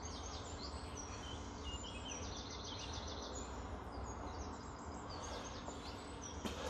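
Small birds chirping and trilling in short repeated phrases, over a steady low hum.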